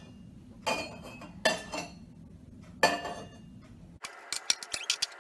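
Hard plastic knocking and clinking as things are handled: three separate knocks, then about four seconds in a quick run of small clicks.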